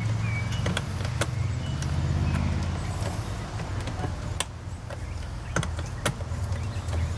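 Okay 2000 W electric roller wood shredder running with a steady low motor hum, broken by irregular sharp cracks as green ash wood is crushed through it. The machine is labouring on a sapling at about its 40 mm maximum and is not coping well.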